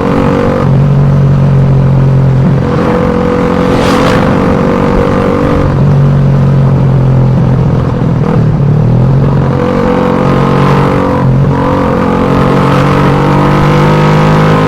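Suzuki Satria FU 150's single-cylinder four-stroke engine running loud through its exhaust, holding a steady note with brief dips and changes in pitch near the start, about eight seconds in and about eleven seconds in.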